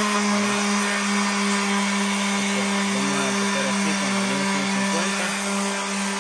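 Corded electric sander running steadily with 150-grit sandpaper against a car wheel rim, sanding out its scratches: a steady motor hum over an even hiss of abrasion.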